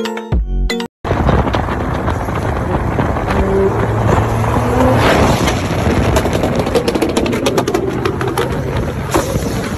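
A short electronic jingle for about the first second, then high-performance cars running flat out on a highway: dense engine and rushing-air noise, with a quick run of sharp exhaust pops and crackles in the second half.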